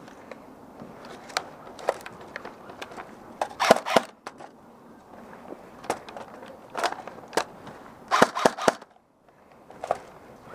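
Airsoft guns firing: scattered single sharp shots, with two quick clusters of several shots, one a little before the middle and one near the end.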